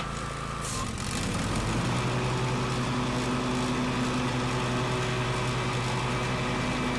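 Lawn tractor engine running steadily. About a second in the sound changes and grows louder, then holds an even hum.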